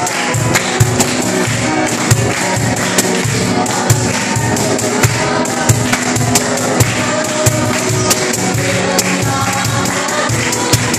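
A group singing a worship song together, with hands clapping in time, sharp claps about every half second.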